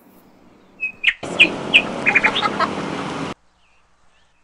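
Birds chirping: a few short chirps, then about two seconds of rapid chirping over a steady hiss that cuts off abruptly, leaving only faint chirps.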